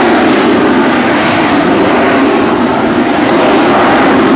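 AV-8B Harrier II's Rolls-Royce Pegasus turbofan jet engine at high power as the jet climbs, a loud, steady jet noise.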